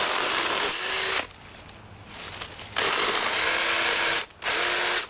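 Black & Decker Alligator battery-powered lopper chainsaw running in three short bursts as its chain cuts into branches, the electric motor whining steadily under the cutting noise, with brief pauses between bursts.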